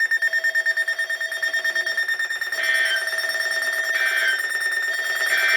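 Weather alert radio sounding its electronic alarm: rapid high-pitched beeping, which about two and a half seconds in changes to a two-tone warble repeating about every second and a half, signalling a newly issued warning.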